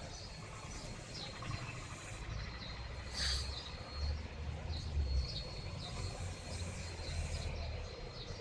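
Outdoor ambience: scattered short high chirps of small birds over a thin steady insect tone, with a low rumble underneath. A brief rustle about three seconds in.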